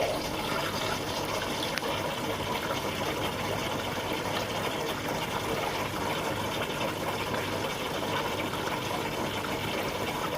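Water rushing into an Arçelik 8 kg washing machine through its detergent drawer, with the inlet valves feeding all the drawer compartments open at once in the test mode's 'all drawers' step. It is a steady rush that cuts off suddenly at the end, as the valves close.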